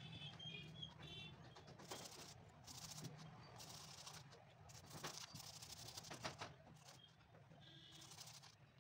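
Faint scrubbing of a small stiff brush over a worn shoe sole piece, in several short strokes, with faint bird chirps near the start and again near the end.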